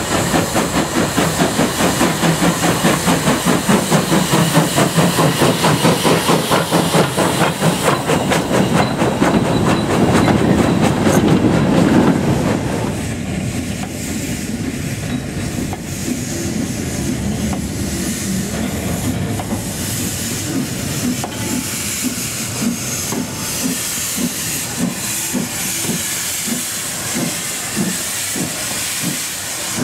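Steam locomotive working hard, its exhaust beating in a steady rhythm of about two to three chuffs a second. About twelve seconds in this gives way to a quieter, steady hiss of escaping steam with fainter beats.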